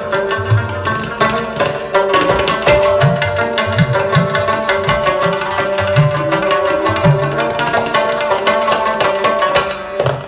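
Local folk music with hand-drum beats and rapidly plucked strings over a sustained melody, dropping briefly near the end.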